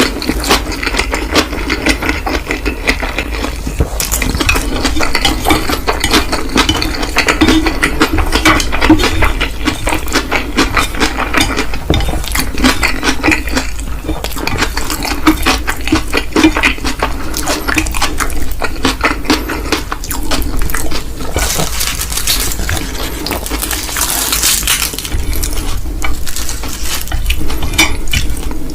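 Close-miked eating sounds of a person eating instant mi goreng noodles: a dense run of small clicks and chewing noises, with utensils clinking against the dish.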